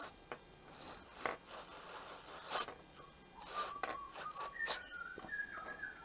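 Gloved hands handling a small plastic carburettor part: soft rubbing and scraping with a few light clicks as it is turned over and set down on the bench.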